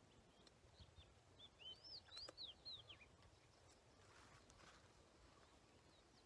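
Faint bird song: a short phrase of high, arching whistled notes about one and a half to three seconds in, over a quiet outdoor background.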